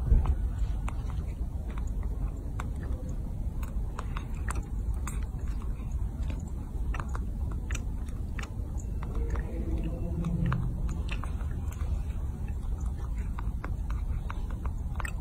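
A baby macaque chewing and smacking on a piece of bread: irregular small wet clicks of its mouth, over a steady low rumble.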